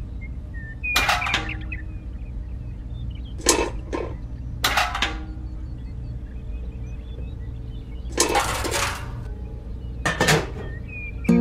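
Sharp knocks and clinks, mostly in quick pairs, with one longer scraping sound about eight seconds in, over a steady low hum.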